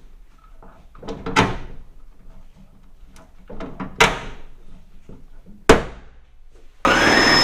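Sharp metallic clanks and snaps on a thin aluminum boat hull during riveting with a manual rivet gun: three loud ones with smaller clicks between. Near the end, a drill starts and runs steadily with a high whine.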